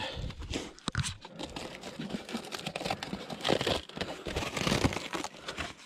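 Aluminium foil crinkling and crackling in irregular bursts as hands peel it open from around a wrapped baked potato.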